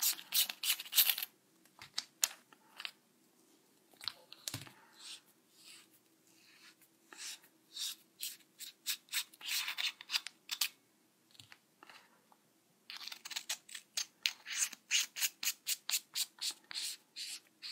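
A handheld flashlight being taken apart and screwed back together: its threaded sections scrape as they turn, with clicks and knocks of handling. About two-thirds of the way through comes a fast run of short, even scraping strokes as a section is screwed on.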